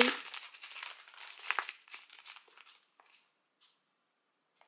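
Small clear plastic packets of diamond-painting resin drills crinkling as they are handled. The crackling is dense at first, thins out after about two seconds and stops near three seconds, leaving a couple of faint ticks.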